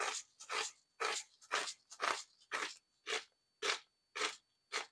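Salt being dispensed into a pot of water in even strokes, about two short bursts a second, ten in all.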